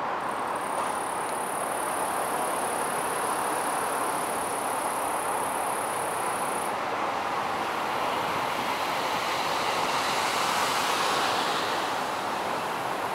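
Steady outdoor noise of traffic and rail, swelling as a vehicle passes about ten seconds in. A thin high whine sounds through the first six seconds or so and then cuts off.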